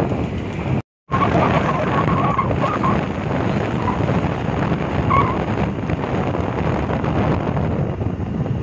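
A motorcycle running at riding speed, heard from the pillion seat, with wind rushing over the phone microphone. The sound cuts out completely for a moment about a second in.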